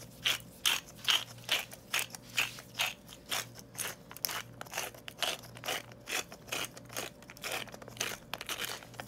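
Salt shaker being shaken over a bowl, the salt grains rattling inside it in a steady run of about two shakes a second.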